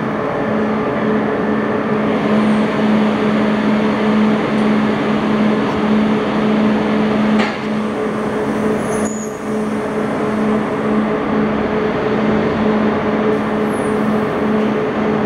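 Renfe passenger train standing at the platform with its machinery running: a steady hum holding one constant low tone and a fainter higher one.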